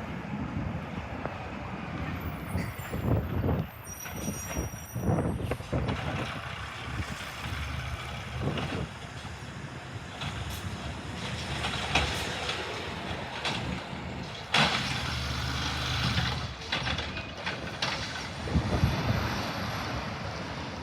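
Garbage truck running, with an air-brake hiss, a high squeal a few seconds in, and several sharp clanks.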